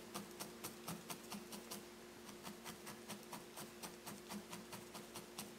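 Felting needle stabbing repeatedly into wool on a burlap-covered felting pad: soft, even ticks about five a second as the wool is firmed and shaped.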